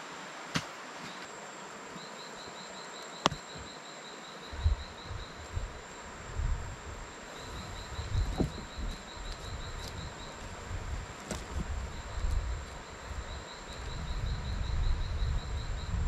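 Insects calling: a steady high whine and repeated trains of rapid chirps, with a few sharp clicks. From about four seconds in, low dull scuffs and thumps of a hand scraping and digging in soil.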